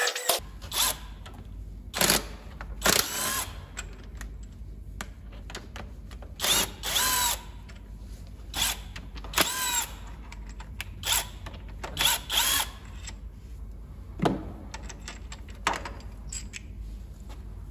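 Handheld power tool run in about a dozen short bursts, its motor whine rising and falling with each pull of the trigger, as fasteners are run out during a diesel engine teardown.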